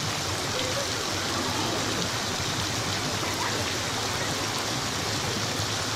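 Steady hiss of water spraying from the overhead pipes of an artificial rain shelter and falling like rain, even and unbroken.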